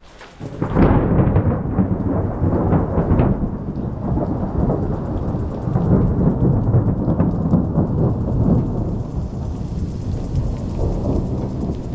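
Thunder from a nearby lightning strike: it breaks in suddenly under a second in with a crackling crash, then rolls on as a long, loud low rumble that slowly fades.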